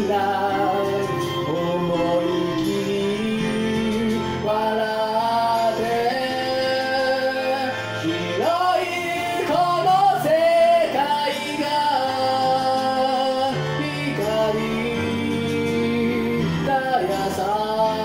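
A man singing a J-pop ballad over a karaoke backing track with bass and band accompaniment; the voice is strongest about halfway through.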